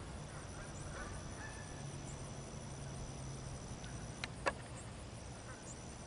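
Faint pondside ambience: a few short honking calls from distant waterfowl in the first two seconds, under a steady high-pitched tone. Two sharp clicks come about four seconds in.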